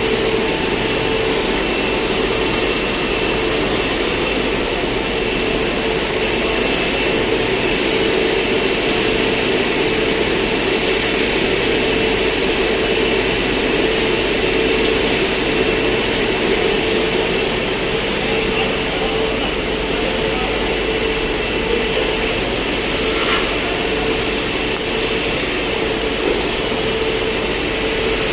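Industrial cutting machine running steadily: a constant machinery hum with a steady high whine, and a few faint short squeaks.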